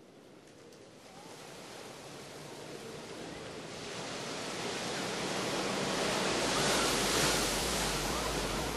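Ocean surf ambience fading in: a steady rushing of waves that grows gradually louder throughout.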